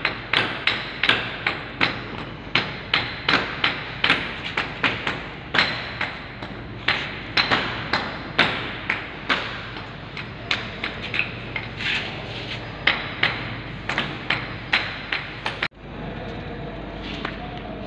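Hand hammer striking over and over in a quick, uneven series, about two to three blows a second, as the concrete floor is chipped clean along the wall base. The blows stop suddenly near the end, leaving only steady background noise.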